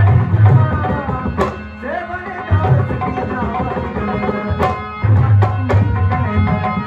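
Live Indian folk music: hand drums of the tabla kind keep a steady beat under a sustained melodic line, with a few sharp accents.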